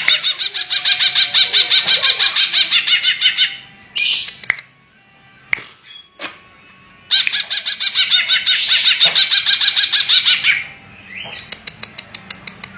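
Green leafbird (cucak ijo) singing: two long bouts of rapid, evenly pulsed chattering notes at about eight or nine a second, one at the start and one about seven seconds in. Between them come a few short separate calls, and near the end a quicker run of clicks.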